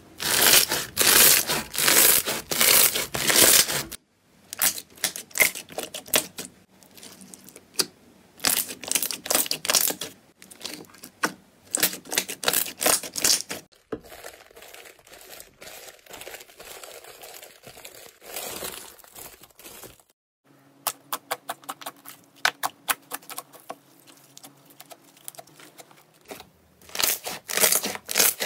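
Slime being pressed and squeezed by hand, in a run of short clips that break off sharply: dense crackling and popping from a crunchy bead-filled slime, a quieter stretch of rubbing and crinkling under a layer of paper, then sharp popping again as a thick yellow slime is kneaded near the end.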